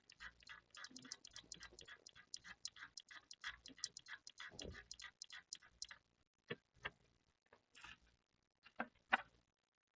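Rapid, even scratching strokes of a tool scraping the coating off a power trace on a laptop motherboard, about seven strokes a second. The run stops about six seconds in, and a few separate scrapes or clicks follow.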